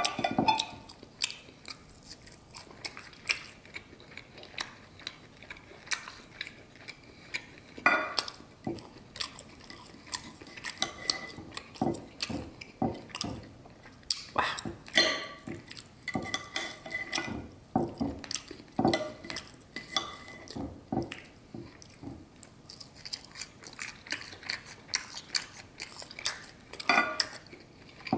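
Metal knife and fork clinking and scraping on a ceramic plate as a steak is cut, in irregular sharp clicks, a few of them ringing briefly, with chewing between the cuts.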